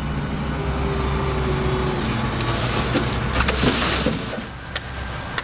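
A motor vehicle running with a steady low hum, with a rush of road noise swelling in the middle and fading before the end, and a few light clicks.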